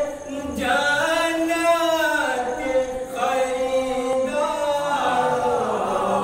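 A man chanting a devotional kalam without accompaniment through a microphone, in long, drawn-out melodic lines.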